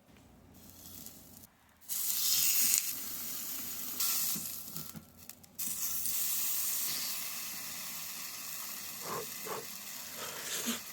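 Food sizzling on a small barbecue grill. It starts about two seconds in after a quiet stretch and cuts out briefly around the middle.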